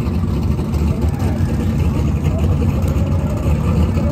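Drag car's LS V8 engine idling steadily at the starting line, a loud, even low rumble with no revving.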